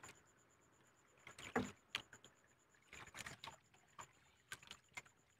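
Mostly quiet, with faint scattered clicks and knocks from handling on a small boat.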